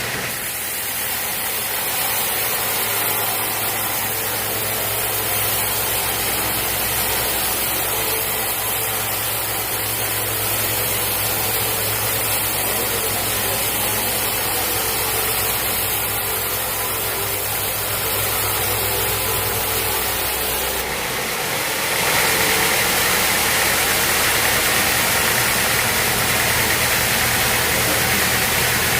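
Sawmill machinery running with a steady engine-like hum. About 21 seconds in, the low hum drops away and a louder, hissing machine noise takes over.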